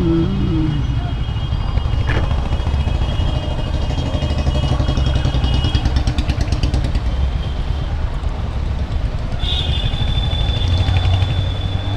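Royal Enfield motorcycle engine running steadily while riding in traffic, with a low steady horn-like tone from nearby traffic cutting off less than a second in.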